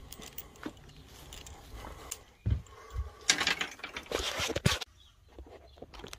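Rustling and knocking from a phone camera being carried and handled, with a loud stretch of scraping rustle from about three seconds in that cuts off abruptly just before five seconds.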